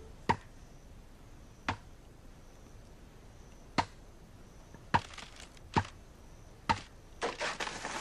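Giant bamboo stalk being chopped with a blade: six sharp chopping strokes at uneven intervals, then a quick run of lighter knocks near the end.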